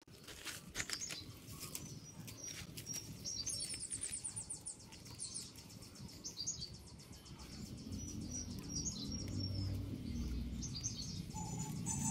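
Small birds chirping, with a rapid trill about three and a half seconds in, over rustling and clicking as rose canes are handled. A low rumble grows louder in the second half.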